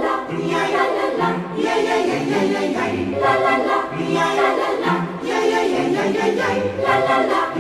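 Background music: a choir singing in close harmony over a steady bass line.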